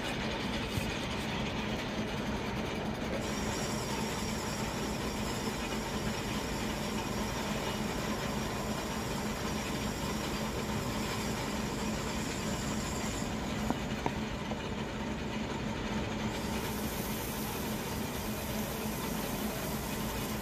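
Lathe running while a large twist drill is fed into the end of a stainless steel workpiece: a steady machine hum and rumble with the drill's cutting noise.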